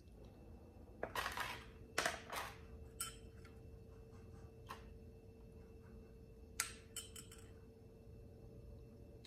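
Tableware handling: chopsticks and a spoon clinking and scraping against glass and china dishes while salad is picked up. The sounds come in short clusters about a second in, around two seconds in and again near seven seconds.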